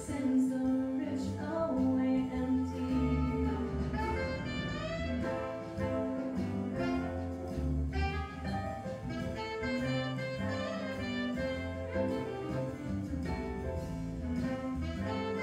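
Music: several held notes and melodic lines sounding together, some with vibrato, at a steady level.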